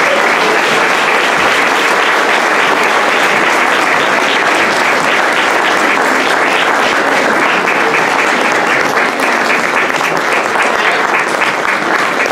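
Audience applauding, loud and steady, easing off a little near the end.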